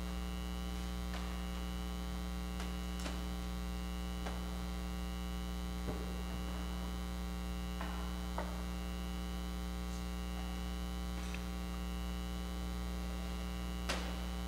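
Steady electrical mains hum, with a few faint, brief clicks scattered through it.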